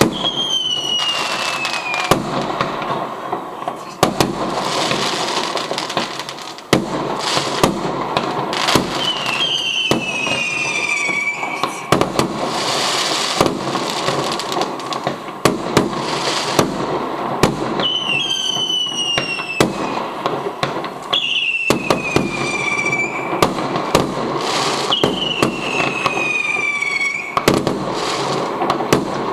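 Fireworks going off: repeated sharp bangs over constant crackling, with about eight whistles that each fall in pitch over a second or two.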